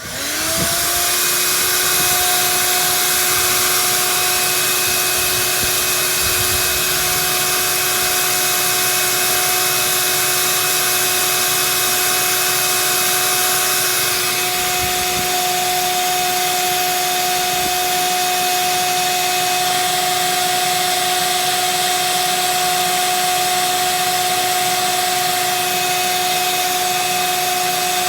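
Shop vac switching on, its motor spinning up within the first second to a steady whine, then running continuously while sucking lint out of a dryer vent duct through a pool noodle pushed into the vent hole.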